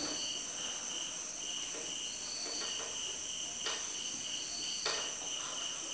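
A cricket chirps steadily, about four chirps a second, over a steady high whine. Under it a cloth rubs softly across a whiteboard, with two light knocks, one a little under 4 seconds in and one about 5 seconds in.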